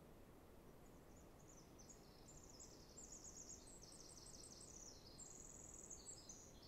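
Faint birdsong: rapid high-pitched trills and chirps that begin about a second in, over a steady low background hiss.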